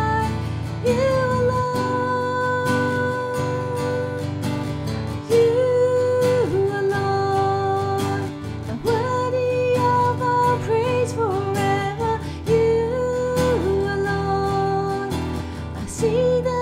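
A woman singing a worship song in long held notes, accompanying herself on an acoustic guitar.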